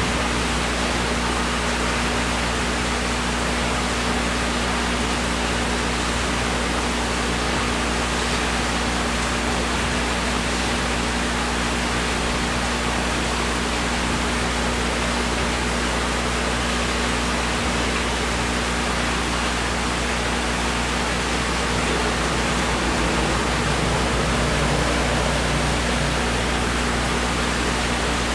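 Seawater aquarium's pump and water circulation: a steady rushing hiss of moving water over a low, even motor hum.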